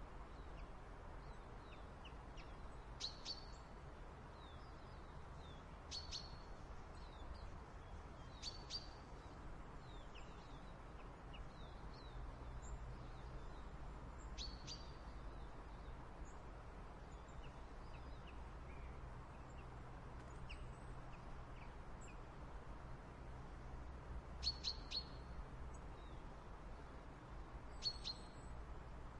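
Small backyard songbirds giving short, high, sharp chirps every few seconds, a few in quick pairs, with fainter chirps between. A faint low steady rumble lies underneath.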